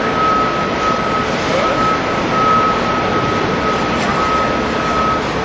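Loud, steady city street traffic noise, with a thin high electronic tone that sounds, breaks off and comes back several times.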